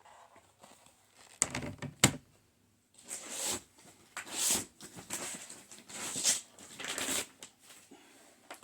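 Hard plastic graded comic slabs being handled: two sharp clacks, then several short sliding, rustling swishes as the slabs are moved and shuffled.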